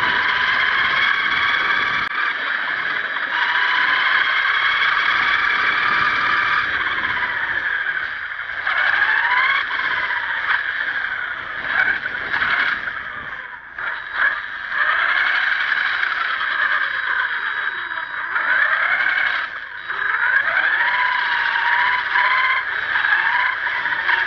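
High-pitched motor whine from a 1/10-scale HSP RC monster truck, heard from a camera mounted on the truck. The pitch slides up and down as the throttle is worked, with a few brief drops where it lets off.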